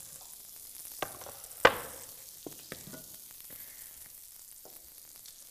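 Kebabs sizzling steadily on a hot electric grill, with a few knocks and clicks of kitchenware being handled; the loudest is a single sharp knock about a second and a half in.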